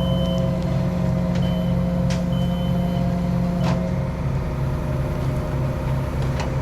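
Engine running steadily with a pulsing low hum, while a hydraulic boom gives several short, high-pitched squeaks and a couple of sharp clicks. The squeaking was put down to the machine being new and not yet worked in.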